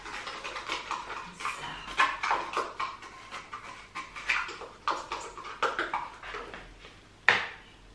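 Teaspoon scraping and clinking against a small container and the stainless bowl of the Krups Prep&Cook, in short irregular strokes, with one sharper click about seven seconds in.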